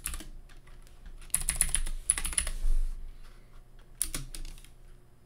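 Typing on a computer keyboard: a quick run of keystrokes in the middle, then a short burst of a few more about four seconds in.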